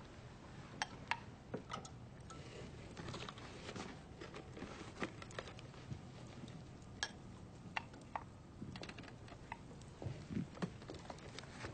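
Faint, irregular light clicks and taps over quiet room tone.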